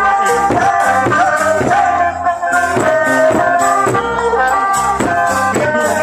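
Thai folk procession music: drums and cymbals keep a steady beat of about two strokes a second under a sustained, gliding melody.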